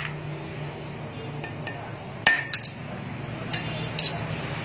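Knife blade of leaf-spring steel chopping nails against a steel block: a sharp metallic clang about two seconds in with a brief ring, a second quick strike just after, and lighter clinks near the end.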